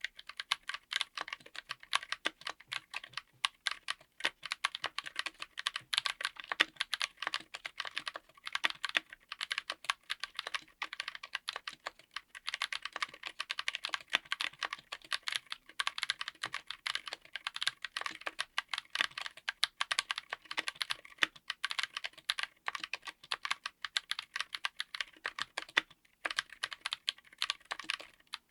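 Continuous fast typing on a mechanical keyboard with Gazzew U4Tx 65g tactile switches: a dense run of sharp keystrokes, each switch bottoming out with a thock while the upstroke stays silent.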